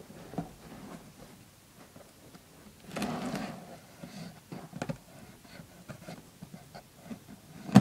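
Scissors blade slitting the packing tape on a cardboard box, with scattered scrapes and clicks and a rustling stretch about three seconds in. A sharp knock comes right at the end.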